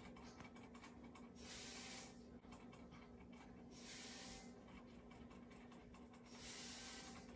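A hamster licking the metal spout of its water bottle: a faint, rapid run of small ticks. Three soft hissing sounds, each about a second long, come at even intervals of about two and a half seconds, over a faint steady hum.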